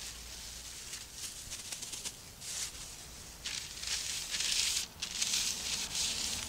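Flour shaken from a plastic bag with a light rustle, then a hand sweeping it over a paper sheet in a run of brisk swishes, starting about halfway through.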